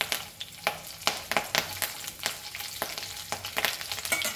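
Fresh curry leaves spluttering in hot ghee and oil: a steady sizzle broken by frequent sharp crackles and pops.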